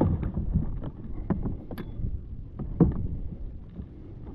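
Tucktec folding plastic kayak out on the water: water sloshing and rumbling against the hull, with a few sharp knocks.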